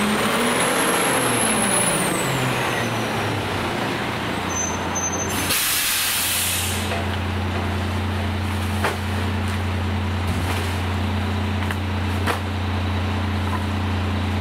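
Battle Motors LET2 garbage truck with a McNeilus rear-loader body rolling to a stop, its air brakes letting out a hiss about five seconds in as it sets. The truck then idles with a steady low hum, with a couple of faint knocks later on.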